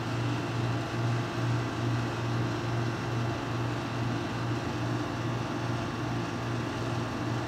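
Handheld electric massager motor running steadily against the back muscles, its low hum swelling and easing about twice a second as it is worked over a trigger point.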